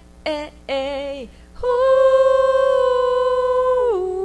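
A woman's voice singing without accompaniment: two short notes with vibrato, then one long hummed note that slides down in pitch near the end.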